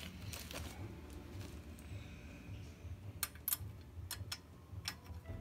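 Faint, scattered light metal clicks and taps as a chrome exhaust header and its flange nuts are handled and fitted onto a Predator 212cc engine's exhaust studs. A quick cluster of clicks comes a little past the middle.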